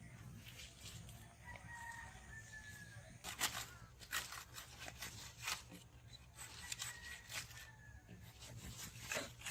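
A rooster crowing twice in the distance, each crow a thin call falling slightly in pitch. Several sharp clicks or knocks come in between, the loudest about three and a half seconds in, over a low steady hum.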